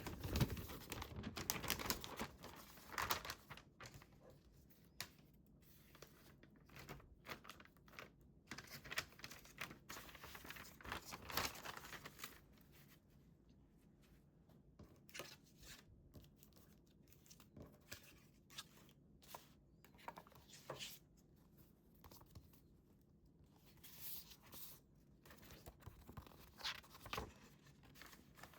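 Paper being handled for a scrapbook: close rustling, crinkling and tearing with small taps and clicks. The handling is busy for the first dozen seconds or so, then thins out to scattered rustles and ticks.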